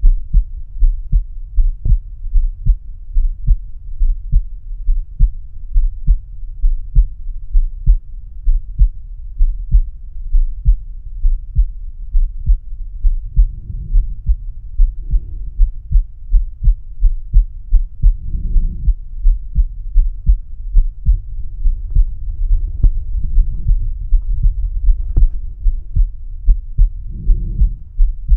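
An adult man's heartbeat heard through the bell of a stethoscope held to the chest: a steady run of low, muffled lub-dub beats, with a few brief swells of low noise in between.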